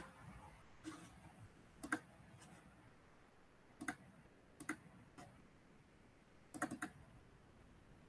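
Faint, scattered clicks of a computer mouse and keys: single clicks about once a second or two, then a quick cluster of clicks near the end.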